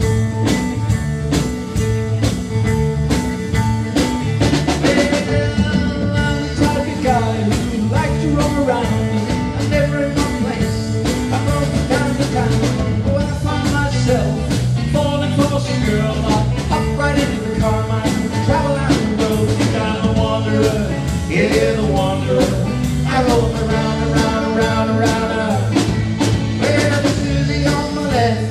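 Live rock and roll band playing through a PA, with a steady drum and bass beat, electric guitar and keyboard, and a singer's voice over it.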